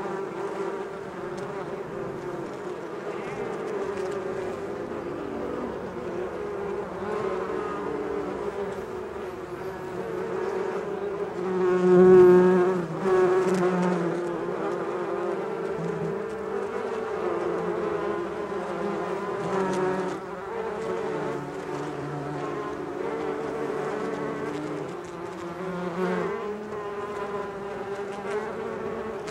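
A swarm of bees buzzing: many overlapping buzzes at slightly different pitches that rise and fall, one swelling louder about twelve seconds in, as if passing close.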